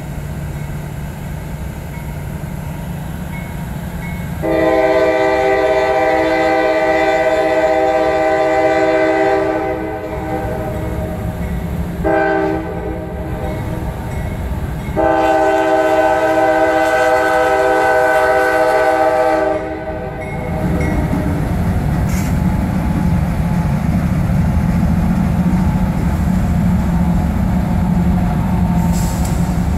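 CSX diesel freight locomotive's multi-tone air horn sounding for the road crossing: a long blast, a short one, then another long blast. After the horn, the low, steady rumble of the locomotives passing.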